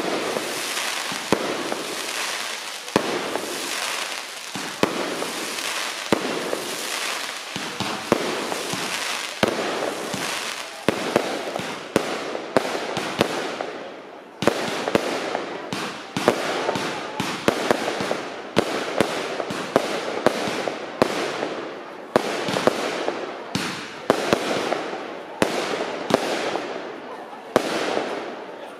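Fireworks display: aerial shells bursting with sharp bangs about once a second, crackling and hissing between them. From about halfway through, the bangs come faster and denser, several a second.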